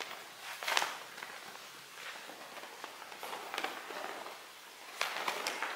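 Two large dance flags being swung through the air, a swish of fabric about once a second, the strongest about a second in and a pair near the end.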